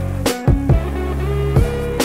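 Background music: sustained melody notes over deep bass notes that drop in pitch, with sharp drum hits about a quarter, half and three-quarters of a second in and again near the end.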